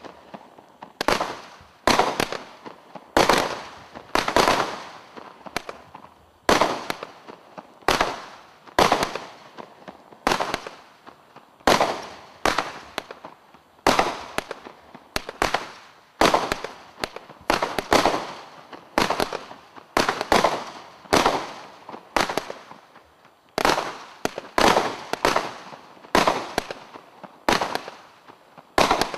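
Global Fireworks 'Rain of Terror' 90-shot barrage cake firing shot after shot, a sharp bang about once a second, each trailing away before the next.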